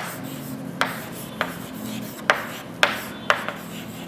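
Writing on a board: faint scratching strokes broken by about six sharp taps.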